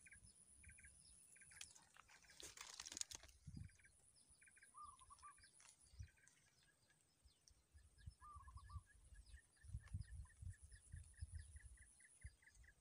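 Faint birdsong: short chirps repeated over and over, with a few brief warbled calls, over a thin steady high whine. A brief rustle about two and a half seconds in, and a few soft low knocks and rumbles.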